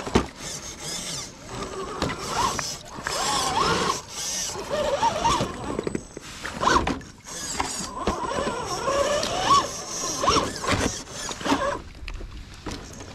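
Electric drive motor and gears of a 1/6-scale RC crawler truck whining, the pitch rising and falling with the throttle, mixed with knocks and scrapes from the chassis on rock.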